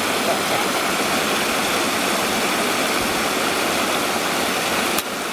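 Steady rushing of a mountain creek, an even hiss without any rhythm, with a sharp click near the end.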